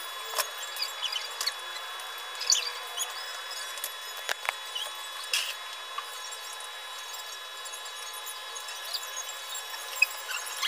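Computer mouse clicking now and then, a few single sharp clicks, over a steady hiss with faint high steady tones, with a few short squeaky chirps mixed in.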